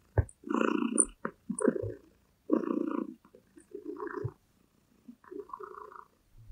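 A gray domestic cat purring close to the microphone while it kneads a cushion, the purr coming in about six pulses, each under a second long, with short gaps between them.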